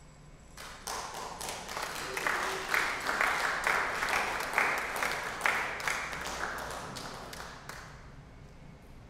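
A congregation applauding. The clapping starts about half a second in, swells, then thins out and stops near the end.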